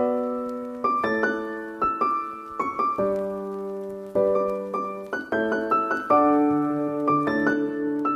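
Background music played on piano: single notes and chords struck one after another and left to ring out.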